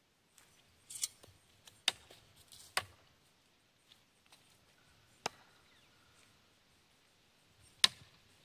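Double Trouble throwing knives striking the target in a series of sharp, single thunks, about five hits spread a second or more apart. The hit about two seconds in and the last one near the end are the loudest.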